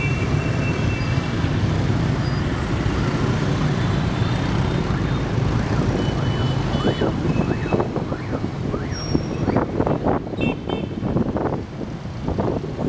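Dense motor-scooter and motorbike traffic: many small engines running together, with short horn beeps now and then. From about halfway, wind buffets the microphone as the bike moves off.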